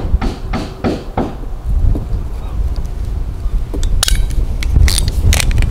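Ratcheting crimping tool clicking about four times a second as MC4 solar connector contacts are crimped onto the cable ends, stopping after a second or so. Then a low rumble, with a few sharp clicks near the end.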